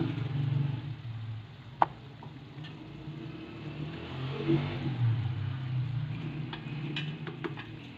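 Wooden spatula stirring a simmering vegetable curry in a nonstick wok, with a wet scraping hiss in the middle and a few light knocks, one sharp knock about two seconds in. A steady low hum runs underneath.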